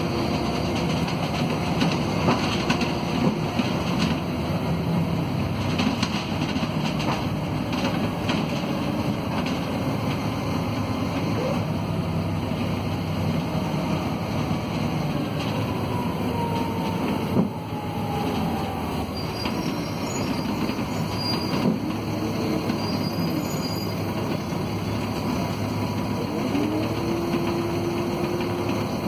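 Volvo D7C diesel engine of a Volvo B7RLE city bus under way, heard from inside the passenger cabin, its pitch rising and falling as the ZF Ecomat 2 automatic gearbox works through the gears, over the rumble and rattle of the body. A steady whine comes in near the end.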